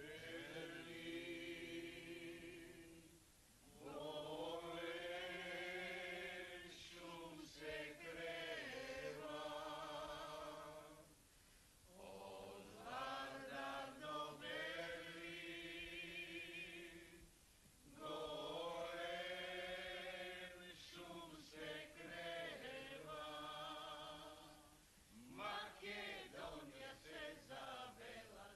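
Unaccompanied singing of a slow song, soft and in long held phrases with a short breath pause between each.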